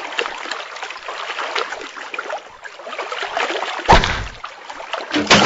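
Steady trickling water of a cartoon pond's ambience, with one sharp thud about four seconds in.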